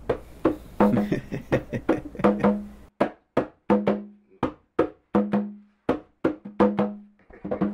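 A drum played alone: sharp strikes, about three a second in an uneven rhythm, many leaving a short low ring.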